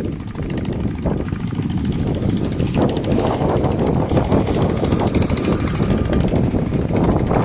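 Construction machinery running steadily, a loud continuous engine noise with a fast rattle.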